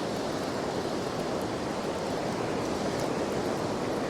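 Ocean surf washing steadily.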